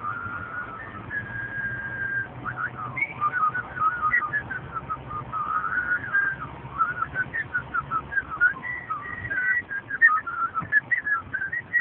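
A car giving off a rapid, irregular string of high-pitched whistling squeals and chirps that keep jumping and sliding in pitch, over a low steady hum that fades out about two-thirds of the way through.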